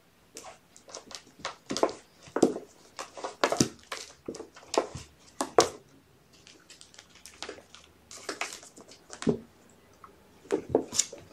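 Kittens scrabbling and bumping on hard plastic: irregular sharp knocks and scratchy scuffs of paws and claws, some of them loud, coming every half second or so.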